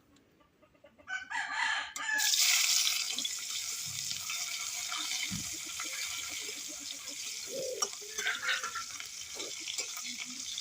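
A rooster crows about a second in. Then, a second later, food goes into hot oil and starts a loud frying sizzle that carries on steadily.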